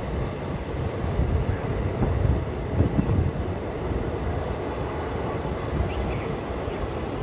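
Diesel-electric multiple unit (DEMU) passenger train running along the track, heard from on board as a steady low rumble of wheels and coach, a little louder for a couple of seconds near the middle.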